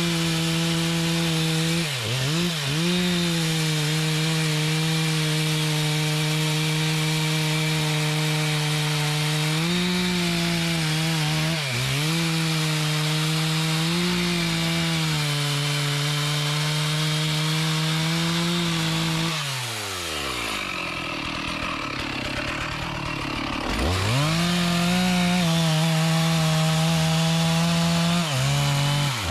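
A gasoline chainsaw cutting through mahogany wood, the engine running at a steady high speed under load with a few brief dips in pitch. About two-thirds through it drops back for a few seconds, then revs up again into the cut.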